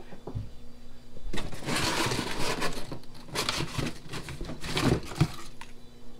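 Rustling and scraping of packaging as parts are taken out of a box, in several bursts, over a faint steady hum.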